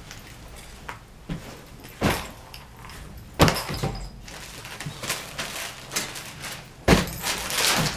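Pink bedding and a plastic-wrapped package being handled on a bed: rustling of fabric and crinkling plastic. A couple of sharp knocks come about two and three and a half seconds in, and a louder burst of rustling comes near the end.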